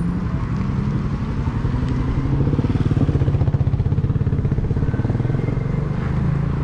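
Huck Cycles Stinger 3000 electric moped under way and picking up speed. Its motor hums steadily, rising slightly in pitch, over wind noise on the microphone that grows louder in the middle.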